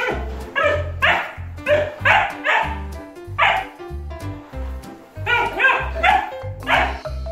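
Doberman puppy barking in short, sharp barks, about a dozen in two bursts with a pause of a second or two in the middle, over background music with a steady beat.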